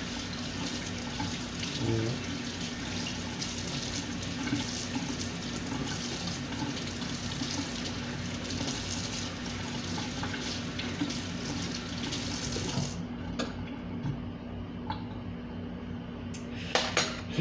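Water running steadily from a kitchen tap, shut off abruptly about three quarters of the way through, over a low steady hum; a few sharp clicks come near the end.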